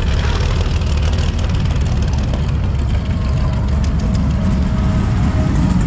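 Drag race car engine idling loudly and steadily.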